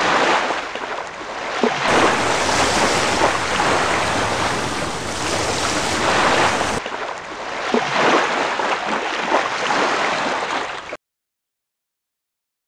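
Rough sea: a loud rush of surging waves that swells and eases every few seconds, then cuts off suddenly near the end.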